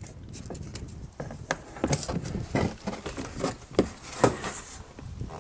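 Irregular light taps and knocks, about a dozen of them, from a cardboard template being pressed and shifted by hand against a plastic mud flap.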